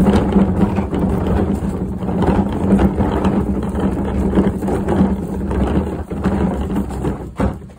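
Wheeled plastic garbage bin being pushed across gravel: a loud continuous rumble and rattle from its wheels, which stops near the end with a single knock.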